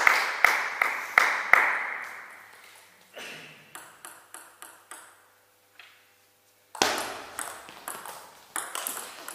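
Applause dying away, then a table tennis ball bounced a few times before the serve. A rally follows, with the ball clicking off bats and table about two to three times a second, echoing in a sports hall.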